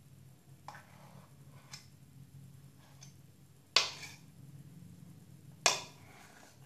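A few faint scraping clicks, then two sharp taps about two seconds apart, each ringing briefly. These are handling noises from mixing the flour slime.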